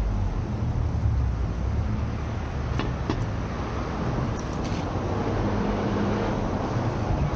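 Road traffic: cars passing with a steady low rumble, with a couple of short high ticks about three seconds in.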